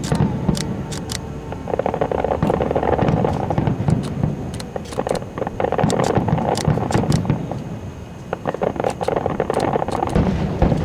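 Aerial fireworks going off: a rapid, irregular series of sharp bangs and crackles over a steady rumble.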